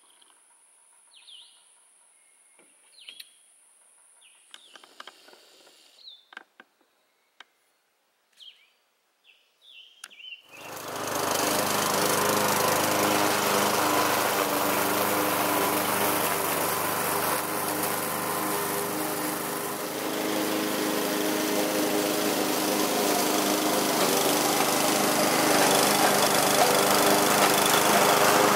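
Faint bird chirps, then about a third of the way in a motor starts up and runs loudly and steadily to the end.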